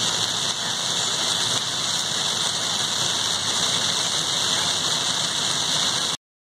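Heavy rain falling on a car's roof and windshield, heard from inside the cabin along with the car's running noise: a steady hiss that cuts off suddenly about six seconds in.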